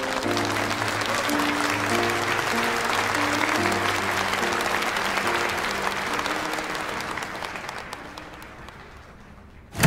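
Audience applauding in a theatre over soft background music, the clapping fading out over the last few seconds. A sudden loud low sound starts right at the end.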